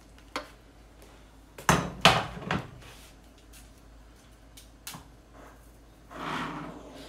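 Kitchenware clatter: a light knock, then a quick cluster of loud knocks about two seconds in as a stainless steel pan and serving spoon are handled and set down on the counter, followed by a small click and a short, softer rustle near the end.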